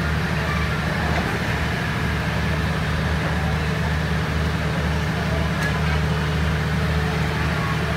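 Diesel engine of a standing passenger train idling: a steady low drone that does not change, with faint voices over it.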